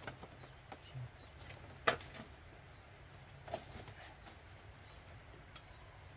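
Scattered light clicks and knocks of tableware as rice is served: a rice paddle against the pot and rice bowls, the sharpest knock about two seconds in.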